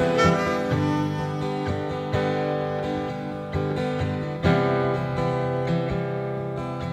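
Live acoustic guitar strumming with a harmonica in an instrumental break, heard from a cassette tape recording of a concert.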